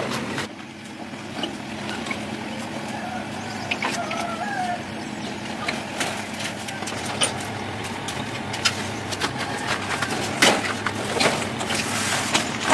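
Van engine idling steadily, with scattered sharp clinks and knocks over it.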